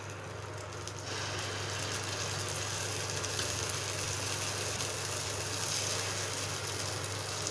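Batter sizzling in the hot oiled cups of a kuzhi paniyaram pan as it is ladled in. The sizzle swells about a second in and goes on over a steady low hum.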